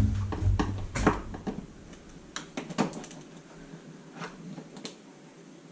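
Plastic clicks and knocks as a push-in plastic trim clip on a car's front end is pried and worked free, with a few dull thumps in the first second and a sharper click at the very end.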